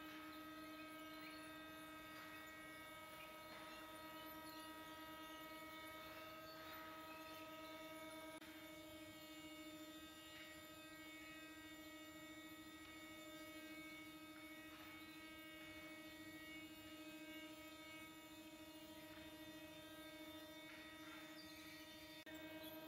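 Near silence: a faint, steady hum with a few thin, even tones above it, shifting slightly about eight seconds in and again near the end.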